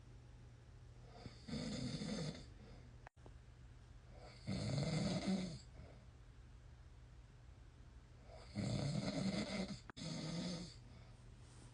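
A man snoring: four snores, each about a second long, with the first three a few seconds apart and the last two back to back.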